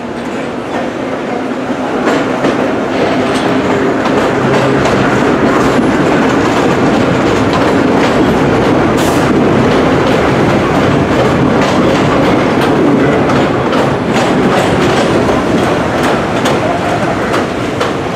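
Train of vintage New York City subway cars passing close by on an elevated track: a steady, loud rumble of the cars with the wheels clicking over the rail joints.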